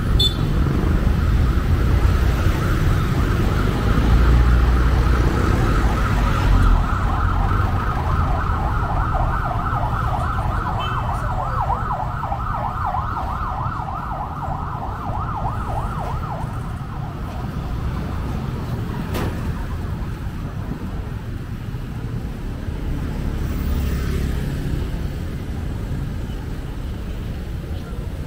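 An emergency-vehicle siren wailing rapidly up and down over the steady rumble of street traffic, fading out a little past halfway; after that only the traffic rumble goes on.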